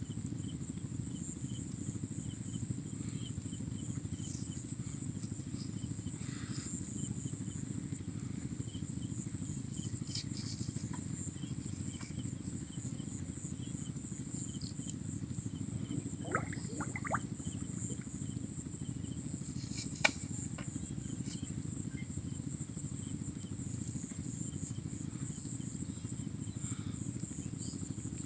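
Insects trilling in one high, unbroken chorus over a low steady rumble, with one sharp click about twenty seconds in.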